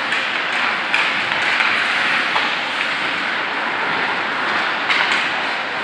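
Ice hockey play heard from rinkside: a steady hiss of skates on ice and arena noise, broken by a few sharp stick-and-puck clacks, a close pair of them near the end.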